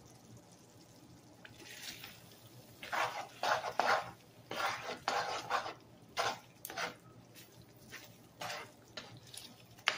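Spoon stirring saucy macaroni and ground beef in a frying pan: wet stirring strokes against the pan in irregular bursts, loudest a few seconds in and thinning out toward the end.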